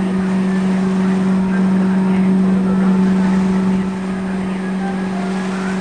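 Cruise boat's engine running with a steady hum, over a constant hiss.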